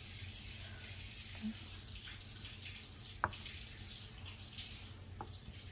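Steady hiss of running water from a kitchen tap. A chef's knife knocks sharply on a wooden cutting board about three seconds in, and more faintly near the end, as it slices through a block of muk jelly.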